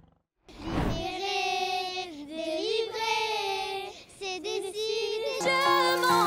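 A young girl singing a high melody on her own, her pitch wavering on the held notes. About five seconds in, a film soundtrack song takes over: instrumental accompaniment with a woman singing.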